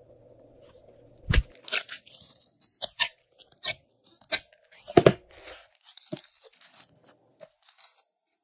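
Glossy slime being stretched, squeezed and kneaded by hand, giving a quick run of sticky pops and crackles, with two louder thumps about a second in and again about five seconds in.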